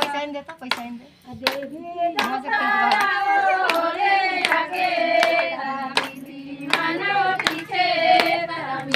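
A group of women singing together to steady hand clapping, a clap a little more often than once a second. The singing drops away briefly about a second in and picks up again.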